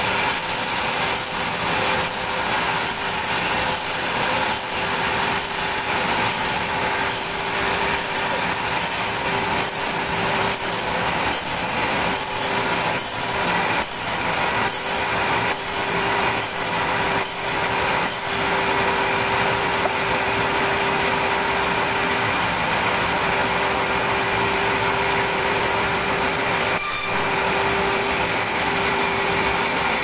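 Band sawmill machinery running steadily with a constant whine, with a series of knocks and clunks through the first half.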